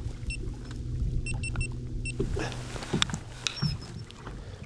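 Electric bow-mounted trolling motor running with a steady low hum, with a string of short high electronic beeps over it. The hum stops about two seconds in, and a few knocks and clicks follow.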